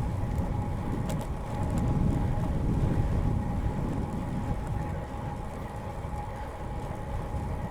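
Wind buffeting the microphone and tyre rumble of a bicycle riding along a paved path, swelling louder about two seconds in, with a thin steady hum and a few faint clicks.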